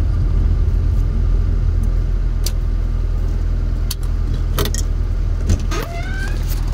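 Car engine rumbling steadily, heard from inside the cabin, with several sharp clicks and knocks from the camera being handled in the second half.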